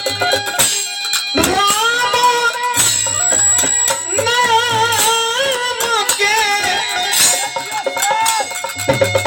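Nirgun folk song: a voice sings a wavering, ornamented melody over a steady low drone and hand percussion with jingles. The singing starts about a second and a half in and breaks off shortly before the end.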